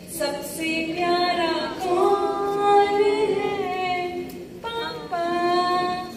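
A female voice singing a slow melody in long held notes that slide from pitch to pitch, with a short break about two-thirds of the way through before the next phrase.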